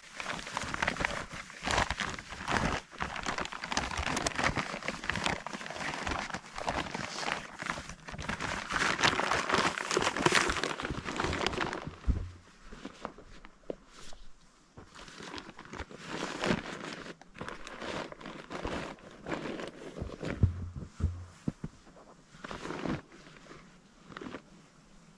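Dense crunching and crinkling for about the first twelve seconds, then only scattered small crunches and clicks.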